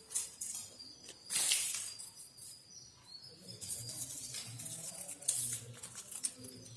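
Light rustling and crinkling of the banner pieces and their plastic packaging as they are handled, in two short bursts near the start and about a second and a half in, with faint bird chirps in the background.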